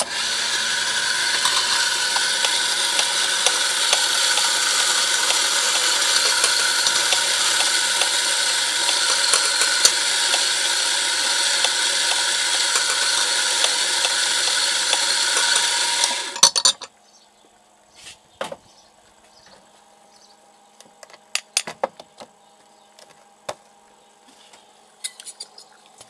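Doser-type espresso grinder running steadily as it grinds coffee beans, then cutting off after about sixteen seconds. After it stops come scattered sharp clicks and knocks from the doser and portafilter being handled.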